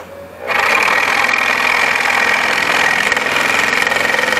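Makita scroll saw: a click, then about half a second in the saw starts running, its blade reciprocating steadily as it cuts through the wooden cutout.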